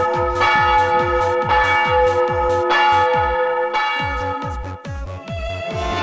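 Electronic dance music with a steady kick-drum beat and church-bell tones struck about once a second. The bells stop about two-thirds of the way through, and the music changes to a new section near the end.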